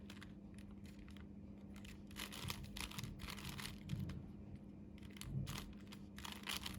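A plastic 5x5 Rubik's Cube being turned by hand: quick runs of clicking layer turns in two clusters, over a steady low hum.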